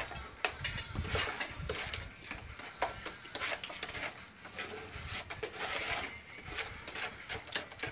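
Irregular clicks, taps and scrapes of metal hand tools working against a concrete tank.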